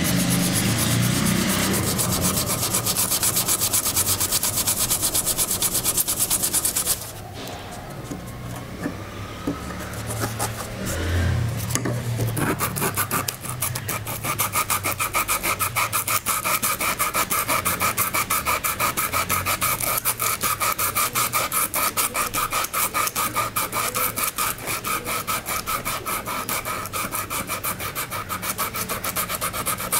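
Sandpaper rubbed back and forth over the rusty steel blade of a pair of sewing thread snips, sanding off the rust in a steady rhythm of scratchy strokes. About seven seconds in the strokes stop for several seconds, then resume.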